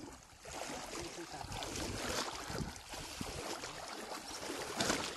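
Water sloshing and splashing as legs wade through shallow water in a flooded field, with irregular louder splashes at each stride.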